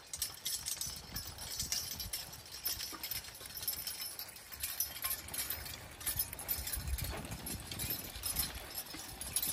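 Team of Belgian draft horses walking at a steady pace while pulling a plow, their heavy hooves thudding irregularly on soft plowed ground and straw, louder toward the end as the team comes closer.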